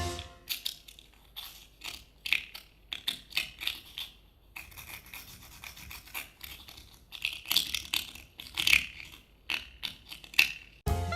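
Irregular series of short scratching and scraping strokes with a longer rubbing stretch in the middle, a hand-made foley sound. Music with a drum beat cuts in just before the end.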